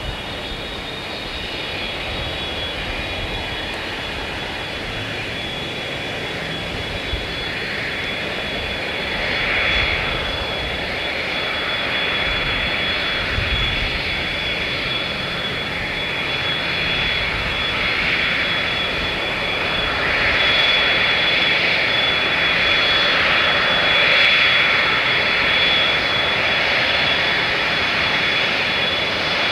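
McDonnell Douglas DC-10-10 taxiing on its three General Electric CF6-6 turbofans: a steady high whine over a jet rush, growing steadily louder as the jet comes closer.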